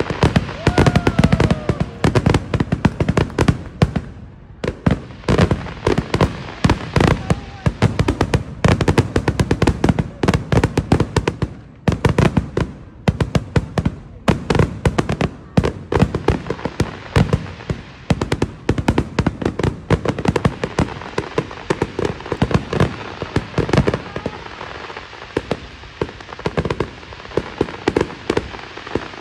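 Fireworks going off in quick succession: a dense barrage of bangs, pops and crackle from low aerial bursts and ground fountains. The barrage thins out in the last few seconds.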